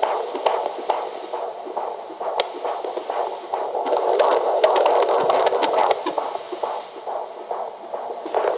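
Fetal Doppler monitor playing a 32-week fetus's heartbeat through its speaker: a fast, whooshing pulse in a steady hiss, with many sharp clicks through it.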